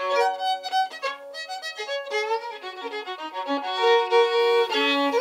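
A fiddle playing a tune, the notes changing quickly.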